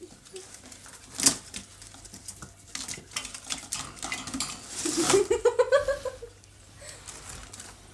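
Light clattering and sharp knocks of small objects in a marmoset's cage, with one louder knock just over a second in. About five seconds in comes a rapid, pulsed rattling sound that rises and then falls in pitch for about a second.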